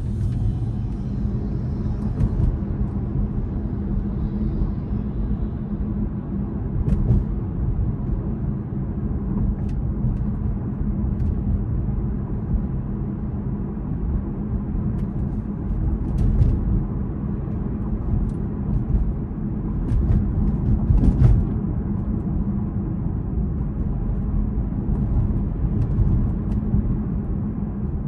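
Road and tyre noise inside a moving Tesla electric car's cabin: a steady low rumble with no engine sound, with a few faint clicks.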